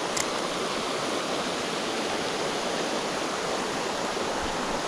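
Creek water flowing: a steady, even rushing wash.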